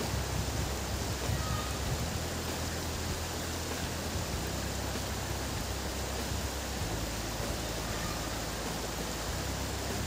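Steady rushing noise of a flowing river.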